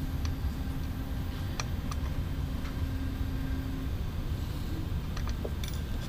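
A few scattered light clicks of a small Allen key turning an M2 screw against a metal limit-switch bracket, over a steady low background hum. A faint steady tone in the hum stops about four seconds in.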